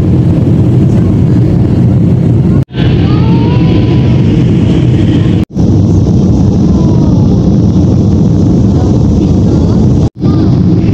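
Steady, loud, low cabin roar of a jet airliner in flight: engine and airflow noise heard from a window seat. The sound cuts out abruptly three times.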